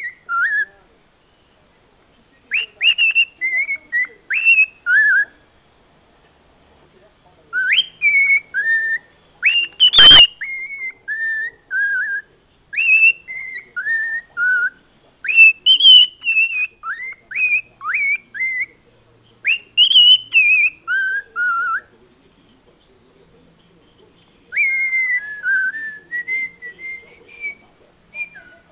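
Cockatiel whistling runs of short gliding notes, mimicking a car alarm, in bursts separated by brief pauses. One sharp click about a third of the way in.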